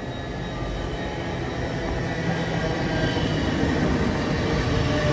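LNER Azuma train drawing into the platform, its running noise growing steadily louder as it comes in.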